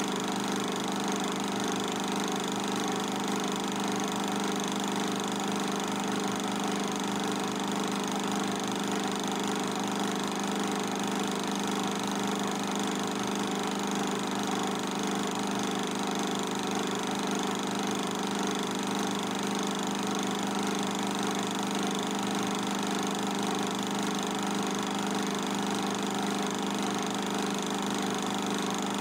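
A film projector running: a steady mechanical hum and whir with several fixed tones and no change in pitch or level.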